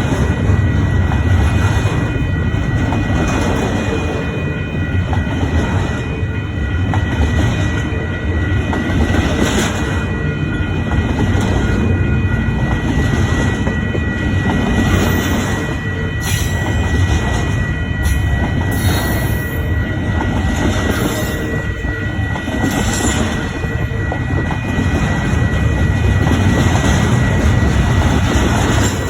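Long intermodal freight train rolling past: a steady rumble of wheels on rail, with a few sharp clicks over rail joints and a thin, steady high squeal from the wheels.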